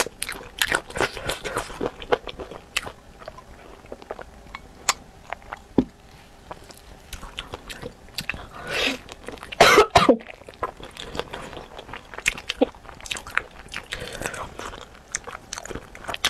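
Close-up eating sounds of spicy chicken feet: wet chewing and sucking with many small sharp crunches and clicks as skin and cartilage are bitten off the bones. About ten seconds in comes a loud cough, the loudest sound here.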